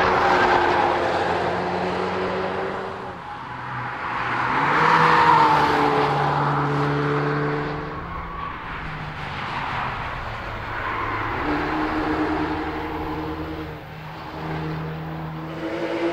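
Mercedes CLA test cars driven hard past a trackside microphone, the engine note climbing and dropping with gear changes over several separate pass-bys.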